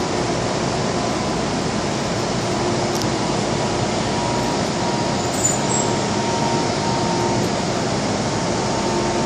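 Steady hum and hiss of a stationary MTR M-Train metro train standing at an underground platform with its doors open, its air-conditioning running. A single click about three seconds in.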